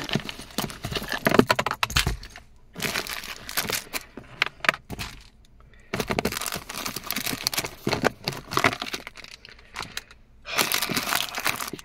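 Clutter being pulled by hand out of a car's center-armrest storage bin: an irregular clatter and rustle of dog leashes, their clips and plastic-wrapped packets knocking against the plastic walls, in bursts with short pauses.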